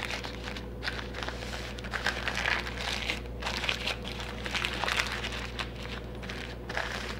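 Parchment paper crinkling in irregular rustles as hands twist and fold its ends around a rolled log of dough.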